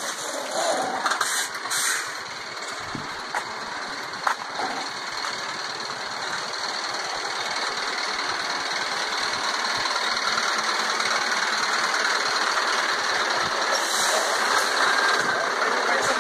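A stationary articulated lorry running, a steady mechanical rumble that grows gradually louder, with a few sharp knocks of phone handling in the first two seconds and another about four seconds in.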